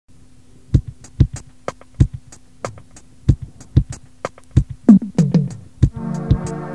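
Music: a beat of sharp percussive hits over a faint steady low hum, with a few falling notes about five seconds in and a sustained chord coming in near the end.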